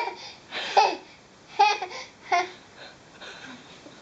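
Baby laughing in four short, high-pitched bursts, then falling quiet for the last second or so.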